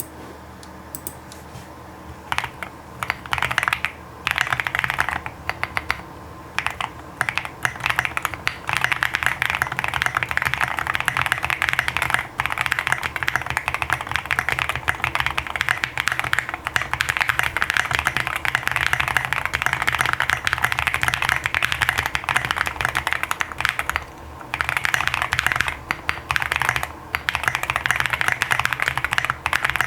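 QK65 mechanical keyboard being typed on: OP Black switches lubed with 205g0 under SA-profile Mizu keycaps, with foam dampening in the case. A few short bursts of keystrokes give way to a fast, continuous stream of key presses, with a brief pause near the end before typing resumes.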